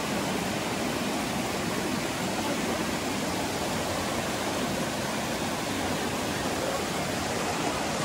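River water rushing steadily, an even, unbroken wash of noise.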